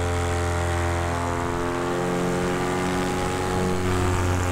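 Paramotor engine and propeller running steadily at a constant pitch in flight, with a strong low drone.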